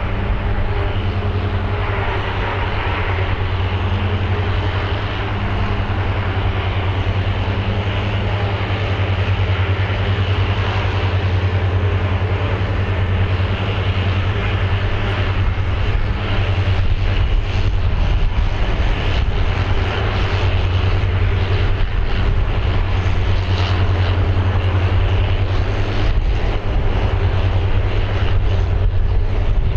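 Aircraft engine noise on a runway, a steady rushing drone that grows slowly louder.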